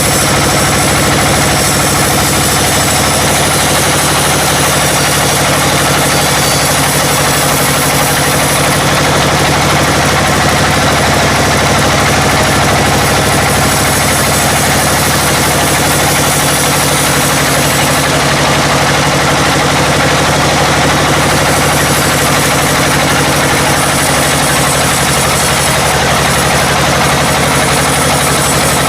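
Engine-driven sawmill machinery running steadily, a loud continuous engine hum with no let-up.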